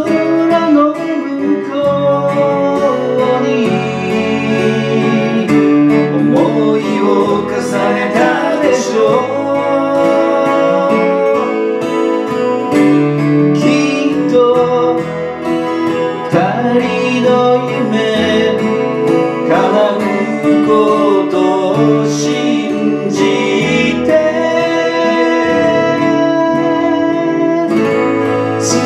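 Two acoustic guitars playing a song together, strummed and picked, with a man singing over them.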